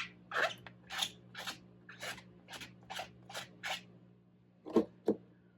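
A rubber stamp being wiped back and forth on a stamp chamois to clean off the ink: about eight short rubbing strokes, roughly two a second, followed by two light knocks near the end.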